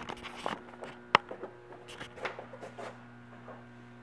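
Room tone with a steady low hum, and scattered light clicks and knocks over the first three seconds, the sharpest a little over a second in.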